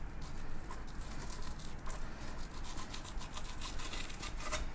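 Kitchen knife blade scraping between skin and flesh against a wooden cutting board as a mutton snapper fillet is skinned: a rapid series of short scraping strokes, thickest in the second half.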